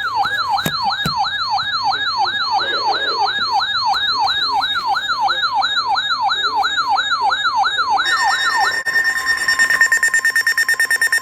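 Electronic siren yelping, its pitch sweeping down and back up about three times a second. About nine seconds in it gives way to a steady high electronic tone with a rapid pulsing.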